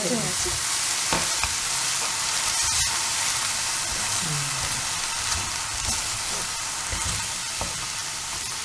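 Diced sweet corn and capsicum with flour and milk sizzling in a hot frying pan, with a steady hiss, while a wooden spatula stirs and scrapes through them. A few faint scrapes and taps of the spatula on the pan.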